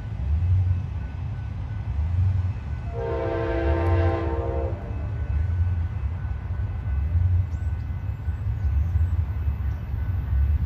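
Amtrak P-42 diesel locomotive sounding its horn in one blast of nearly two seconds, about three seconds in, as it approaches. Under it runs the locomotive's steady low rumble.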